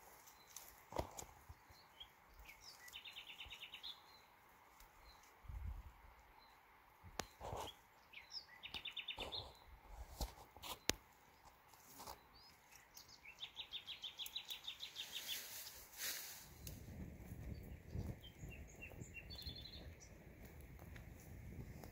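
A small songbird sings a short rapid trill four times, over scattered rustles and snaps of dry leaves and twigs being handled. In the last few seconds a low steady rushing noise comes in.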